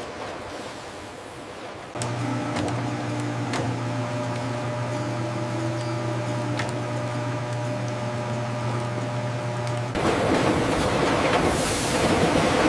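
Factory machinery running: a steady mechanical hum with a few light clicks. About ten seconds in it gives way to a louder, even rushing noise.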